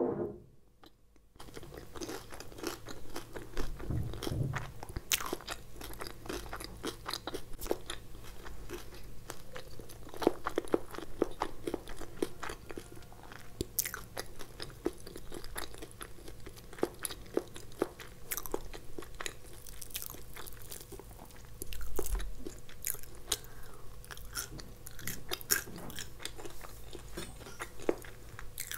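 Close-miked chewing of a mouthful of crispy fried soya drumstick: dense crunching and crackling of the fried coating, with two dull thumps, one about four seconds in and one past twenty seconds.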